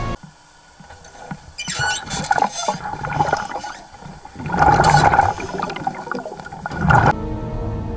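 Underwater churning and bubbling water as a great white shark thrashes against a dive cage, coming in irregular surges that are loudest about halfway through and again near the end. Background music breaks off at the start and comes back near the end.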